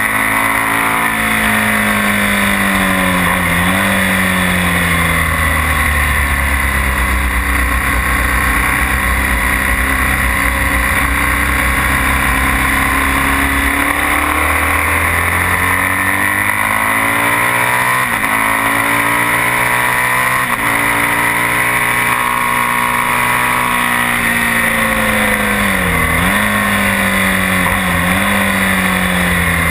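BMW R1200S's air-cooled flat-twin boxer engine ridden hard, revs repeatedly falling off and climbing again, with sharp brief drops in revs about three seconds in and twice near the end, over steady wind noise.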